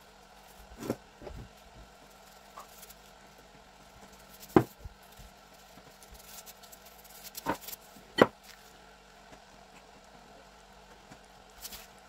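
A few sharp taps and knocks, the loudest about four and a half seconds in and two more close together about three seconds later, over a faint steady hiss.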